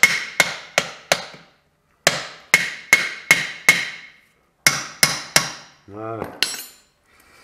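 Hammer striking a steel bar held against a VW Beetle front-beam trailing arm, metal on metal with a ringing tone after each blow. There are three runs of strikes (four, then five, then three) at about two and a half a second, an attempt to knock the arm off its torsion leaf stack.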